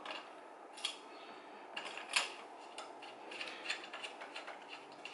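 Scattered light metal clicks and clinks as bolts are set into the holes of a gaming chair's steel seat bracket and turned in by hand; the sharpest click comes about two seconds in.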